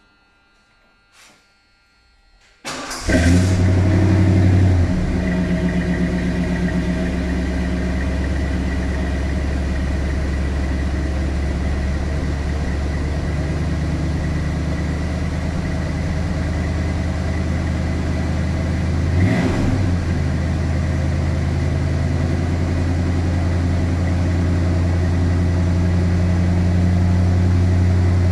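1976 Lincoln Continental Mark IV V8 starting through new Magnaflow rumble mufflers. The engine catches about three seconds in, runs a fast idle for a couple of seconds, then settles into a steady idle, with one short blip of the throttle about two-thirds of the way through.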